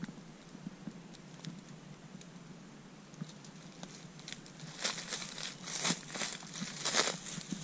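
Footsteps crunching and rustling through dry leaves and brush: faint scattered clicks at first, then a run of louder, uneven crunching steps from about five seconds in.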